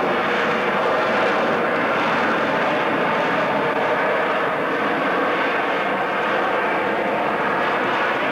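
Steady jet noise from a Harrier jump jet's Rolls-Royce Pegasus engine as the aircraft flies slowly overhead, even in level throughout.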